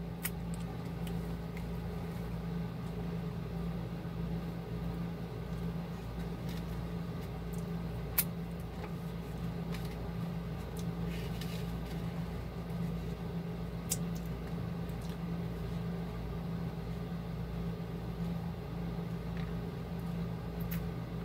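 Steady machine hum, like a fan or air-conditioning unit running, with a few faint clicks.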